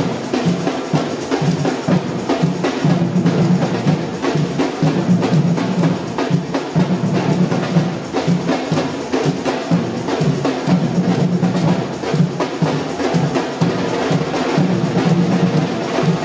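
Samba bateria drumming: large bass drums beat a pulsing low line under dense, fast interlocking drum strokes.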